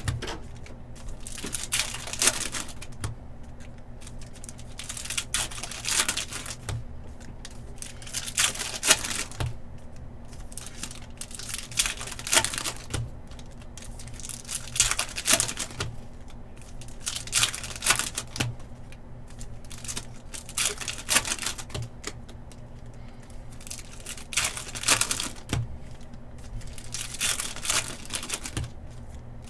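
Foil trading-card pack wrappers crinkling and tearing, with the rustle of cards being handled, in irregular short bursts every second or two.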